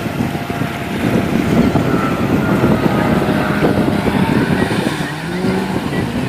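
Jet ski running at speed over open water: a steady engine drone under a loud, rough rush of water and wind, with the engine note rising near the end.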